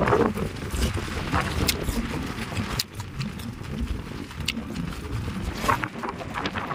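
Eating close to the microphone: slurping and chewing bakso (meatball soup), with scattered sharp clicks over a low rumble.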